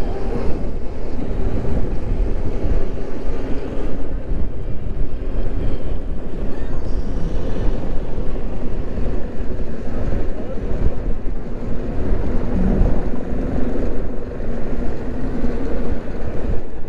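Wind buffeting the microphone of a rider on an electric moped in traffic: a steady, loud rush of wind and road noise, heaviest in the low end.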